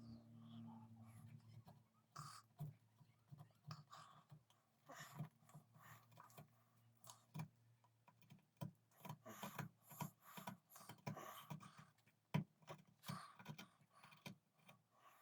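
Hand tools working wood and horn, faint: short, irregular scraping and tapping strokes, several a second. They fit carving or scraping the recess for a horn inlay in a gunstock.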